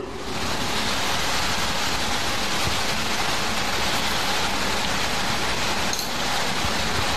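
A steady, even rushing hiss like static, swelling in just after the start.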